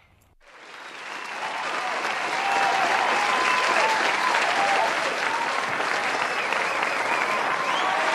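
Large crowd applauding and cheering, fading in over the first two seconds and then holding steady, with voices calling out above it.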